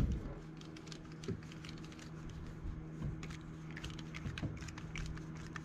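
Scattered light clicks and taps of small hard RC axle parts being handled during assembly, over a faint steady hum.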